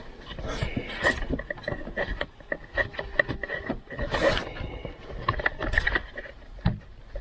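Rubber intake air tube and plastic air box being twisted and tugged by hand: irregular scraping, creaking and clicks as the tight tube refuses to come off.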